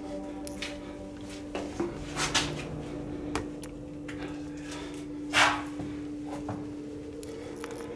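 Scattered light knocks and clicks over a steady low hum, with one louder rustling scuff about five and a half seconds in.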